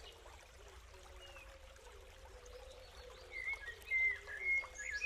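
Birds chirping over quiet outdoor background ambience, the chirps coming thicker from about three seconds in.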